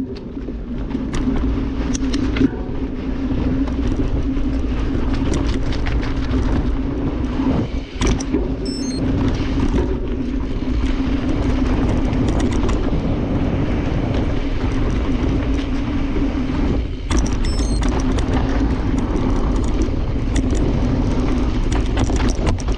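Mountain bike riding down a dirt and rock trail: a steady rumble from the tyres rolling over the ground, with frequent clicks and rattles from the bike, easing briefly twice.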